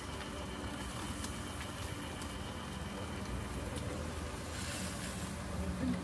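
Chicken yakitori skewers sizzling on a stall grill: a steady hiss with faint crackles over a low rumble.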